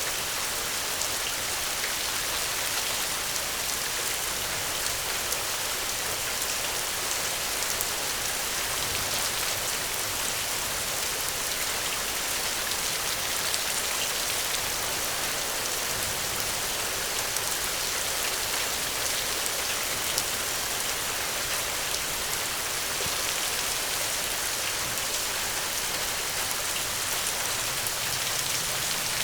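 Steady rain falling: an even hiss dotted with many small, sharp drop ticks, with no thunder.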